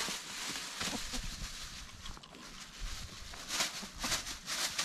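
Chickens pecking at vegetable scraps on dry ground: soft clucking with scratchy rustling, which gets busier about three and a half seconds in.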